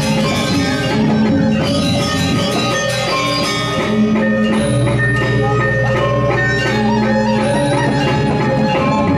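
Balinese gamelan playing for a Telek dance: metallophones ringing in dense rhythmic patterns over drums, with a long low tone sounding from about halfway through.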